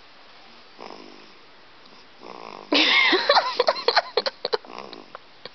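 Soft snoring breaths. About three seconds in, a sudden, much louder burst of squeaky sliding sounds and sharp clicks lasts about two seconds before the soft breathing returns.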